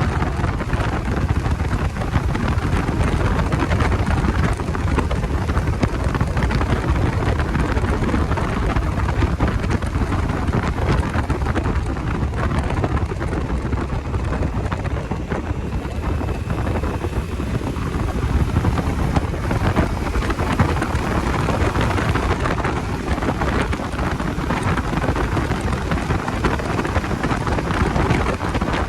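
Steady wind rush over the microphone of a riding motorcycle, loudest at the low end, with the Bajaj Dominar 250's engine and road noise underneath.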